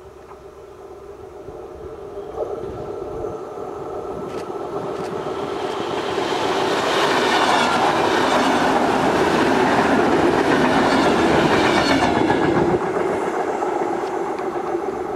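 Electric multiple-unit passenger train approaching on an electrified line, growing steadily louder, then passing close by with a rush of wheel and rail noise. The sound drops away sharply near the end as the train goes by.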